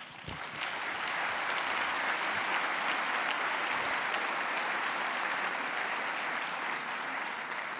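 Audience applauding steadily, building up in the first half-second and easing off slightly near the end.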